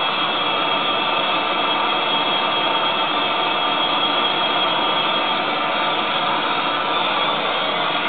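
Propane torch burning with a steady, even hiss as its flame heats a copper pipe fitting for soldering.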